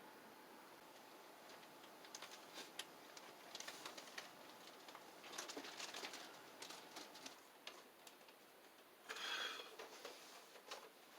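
Faint handling noises: scattered light clicks and short rustles, with one louder rustle about 9 seconds in.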